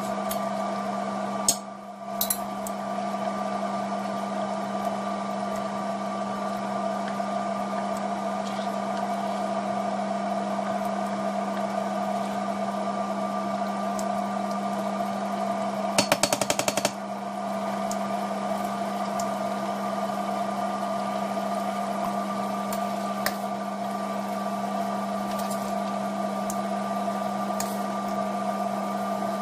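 A kitchen fan motor humming steadily at one pitch. Just past halfway, a rapid run of clicks lasts about a second.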